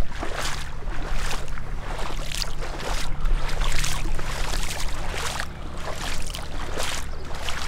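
Gumboots wading through shallow floodwater: a steady run of splashing, sloshing steps, about two a second.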